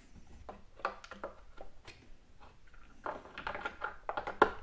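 Light plastic clicks and rubbing as a pleated air filter and its plastic cap are fitted back into a Stihl BG 86 leaf blower's filter housing, with scattered clicks at first and a quicker run of them about three seconds in.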